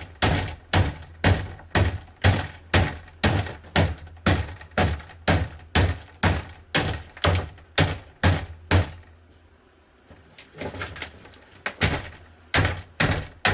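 Repeated hard blows striking a box fan's electric motor, about two sharp knocks a second. The blows pause briefly past the middle, come back lighter, then strike hard again near the end.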